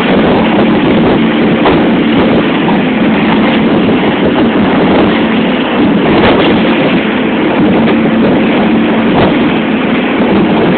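Small fishing boat's outboard motor running steadily under heavy wind noise on the microphone, the recording overloaded and distorted.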